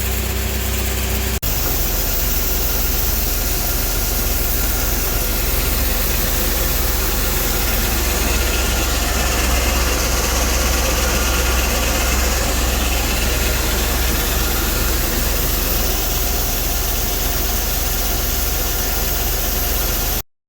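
Heavy engine running steadily at an even speed, with a steady rushing noise over it. The sound changes abruptly about a second and a half in and cuts off suddenly just before the end.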